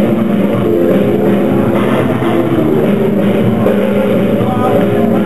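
Loud music playing steadily, with held notes.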